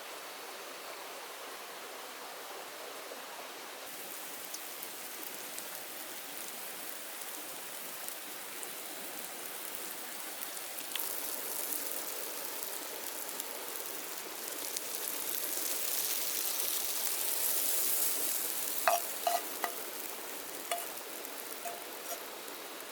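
Food frying in a pan, the sizzle growing louder and peaking towards the end, then a few metal clinks of a utensil against the pan.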